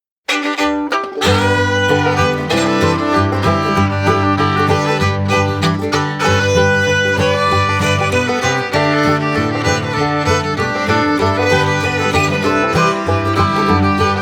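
Upbeat bluegrass-style instrumental music with fiddle, guitar and banjo over a steady bass line, starting a moment in.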